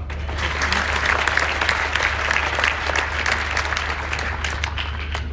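Audience in a large hall applauding a graduate: dense, steady clapping that starts just after the name is read, with single claps standing out more near the end.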